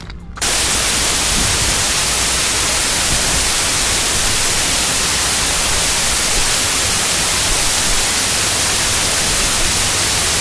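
Loud, steady hiss like white noise, even and unchanging, that starts abruptly about half a second in and cuts off suddenly at the end.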